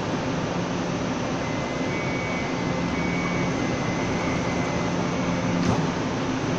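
Kaohsiung MRT high-capacity metro train standing at the platform with its steady equipment and air-conditioning hum. A few faint short high beeps sound midway, and the train's sliding doors shut with a single sharp knock about five and a half seconds in.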